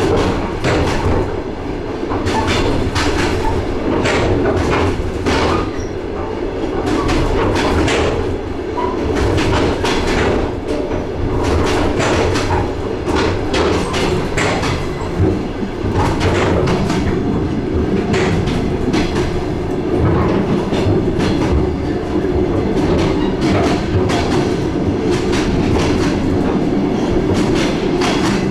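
DR1A diesel multiple unit under way, heard on board: a steady rumble of running noise with the wheels knocking over rail joints again and again.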